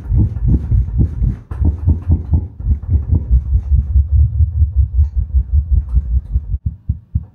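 Deep bass from a Moog Model D synthesizer played through an SVS SB-5000 15-inch sealed subwoofer, pulsing about five times a second. A little after six seconds in, the pulses thin out into sparser, sharper clicks as the synth heads toward its lowest note.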